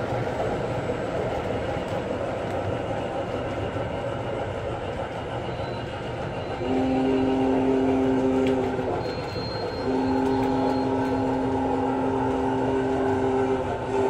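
Model train cars rumbling along the track, then the MTH Premier Big Boy model's onboard sound system blowing its steam whistle in two long two-note blasts: the first a little past halfway, the second longer and running nearly to the end.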